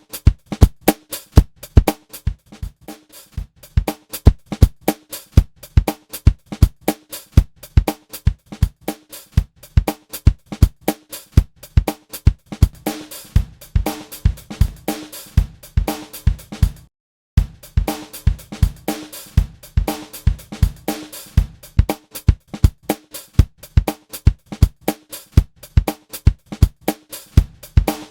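Funk drum loop of kick, snare and hi-hat playing in a steady rhythm, its hits made short and punchy by a transient-shaping envelope plugin (Logic's Enveloper), so it sounds more electronic. It stops for a moment about two-thirds of the way through, then carries on.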